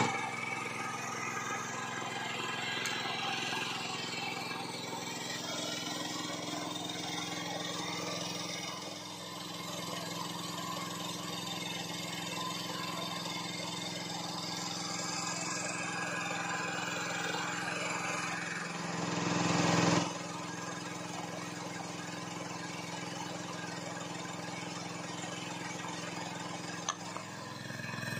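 Small engine driving a water pump for gold sluicing (a dompeng), running steadily. It grows louder for a couple of seconds about two-thirds of the way through, then drops back suddenly.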